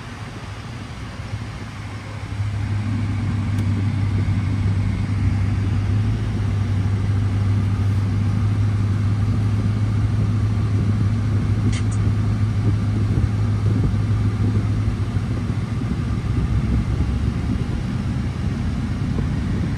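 Ram TRX pickup driving, its supercharged 6.2-litre V8 giving a low, even drone that comes up about two seconds in and holds steady without rising. A short click near the middle.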